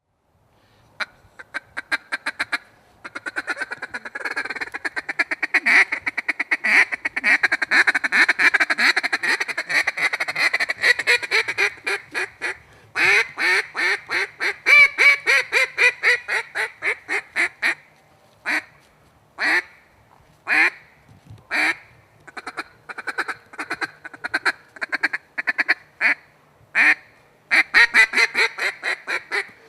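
Field Proven Shot Caller single-reed duck call blown in hen-duck calling: a long, fast chatter, then strings of quacks with a few single quacks spaced apart.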